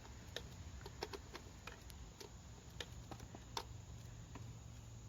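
Scattered light metallic clicks and taps, irregular and a second or so apart, from a socket and small bolts being handled while the coil cover is unbolted.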